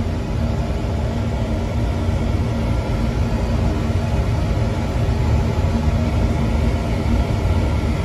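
Slant/Fin oil-fired boiler running steadily, its burner still firing well into a long heating run: an even, low-pitched running noise with no clicks or changes.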